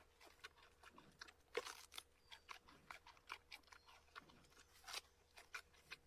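Giant panda chewing a bamboo shoot, close up: faint, irregular crisp crunches and bites, several a second, with a few louder snaps.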